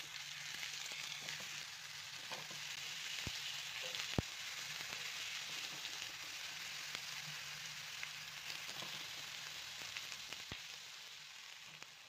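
Eggplant slices sizzling in hot oil on a ridged grill pan as they are laid down one after another. The sizzle is steady and eases off near the end, and there are a few sharp clicks.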